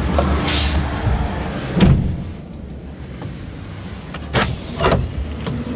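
Knocks, taps and rubbing from a hand handling the truck cab's interior trim: the camera-mirror display housing and the overhead sun visor. There are a few sharp knocks, about two seconds in and twice more near the end, over a steady low rumble.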